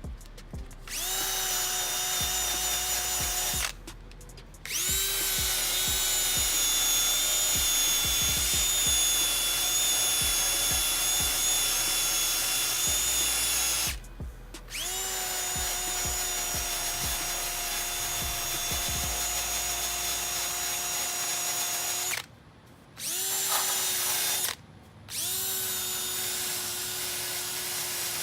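Wire wheel on a power tool grinding a small rust spot on the engine-bay sheet metal down to bare metal. It runs in five bursts with short pauses between them, and each burst whines up to speed and then holds a steady pitch.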